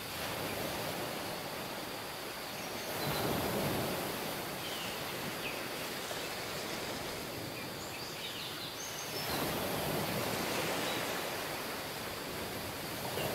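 Ocean surf washing onto a sandy beach: a steady hiss of water that swells louder as a wave comes in about three seconds in and again past nine seconds, with a few faint high chirps.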